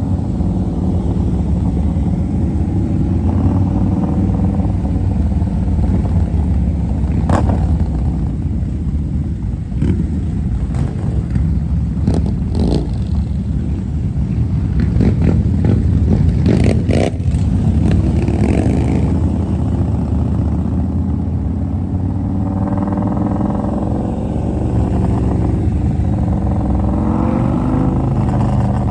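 Engines of a large group of touring motorcycles riding together, heard from one of the bikes in the pack: a steady deep engine note with a few brief sharp knocks in the middle, and the pitch rising twice in the second half as bikes speed up.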